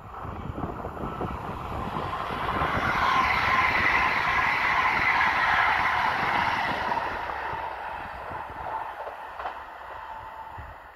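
PESA Dart (ED161) electric multiple unit passing on the line: the sound swells to a peak about three to six seconds in, with a faint steady whine, then fades away as the train moves off.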